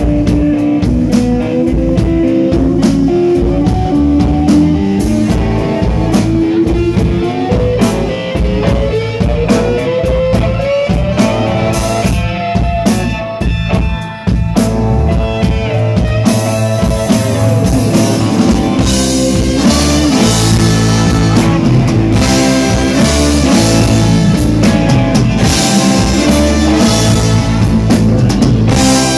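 Live rock band playing loud, with electric guitars over a drum kit. A long note slides slowly upward in pitch over the first dozen seconds. The music dips briefly about 14 seconds in, then comes back fuller and brighter.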